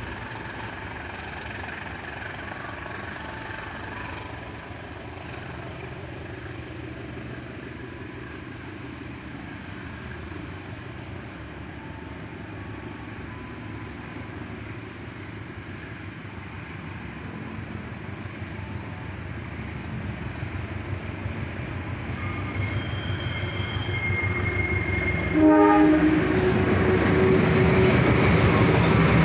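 Diesel locomotive hauling a passenger train approaches, its rumble growing over the second half, and sounds its horn about three-quarters of the way in: a high blast lasting a few seconds, then a louder, lower blast. The locomotive's engine and wheels then pass close by, loud to the end.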